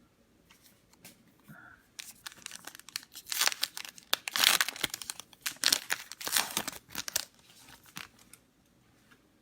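A trading-card pack wrapper being torn open and crinkled by hand. The crackling starts about two seconds in, is loudest in the middle and dies away near the end.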